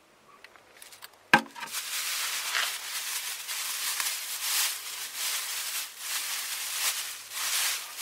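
Thin plastic shopping bag crinkling and rustling as hands untie its knot and pull it open, after one sharp click about a second and a half in.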